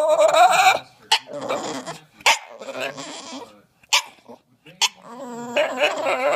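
A dog vocalizing: a drawn-out pitched cry at the start, several short sharp sounds spread through the middle, and another cry near the end.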